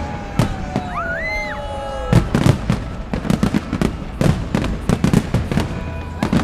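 Fireworks going off: scattered bangs, then rapid volleys of sharp bursts from about two seconds in. Some whistling comes in the first two seconds, one tone slowly falling and another rising and then dropping away.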